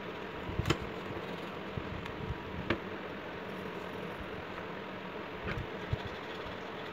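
Steady mechanical hum and hiss, with a few short light clicks, the sharpest less than a second in and another near three seconds.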